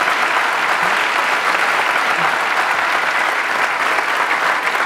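Audience applauding: many people clapping steadily, thinning slightly near the end.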